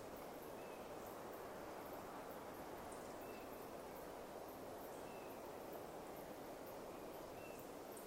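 Faint pine-forest ambience: a steady soft rush. Over it, a bird gives a short high chirp four times, about two seconds apart, with faint high ticks in the background.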